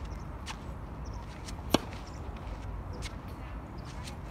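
Tennis racket striking the ball on a flat serve right at the end, a single sharp crack. About a second and a half earlier there is one other sharp knock, over a steady low rumble of wind on the microphone.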